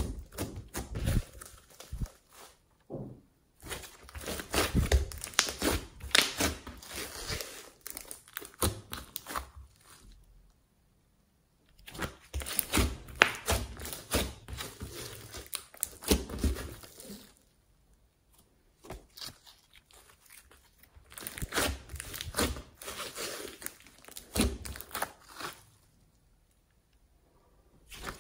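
Thick glossy slime mixed with clay being kneaded and squeezed by hand, crackling and popping in dense clicks. The crackling comes in three long bursts with quiet pauses between.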